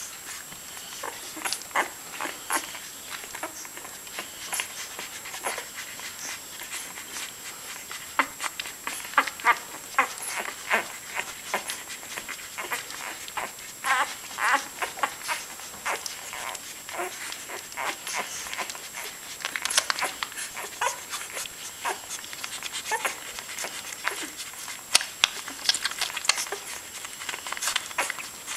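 Newborn chocolate Labrador puppies suckling at their mother: an irregular stream of short sucking smacks mixed with small squeaks and whimpers.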